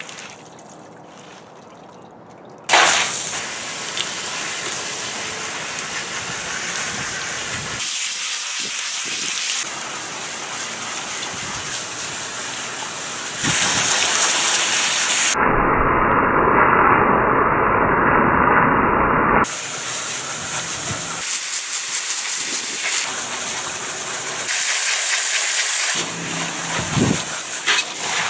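Adjustable hose spray nozzle hissing as its jet of water strikes a pleated pool filter cartridge and splashes into a tub below. The spray starts abruptly about three seconds in, then changes in tone several times.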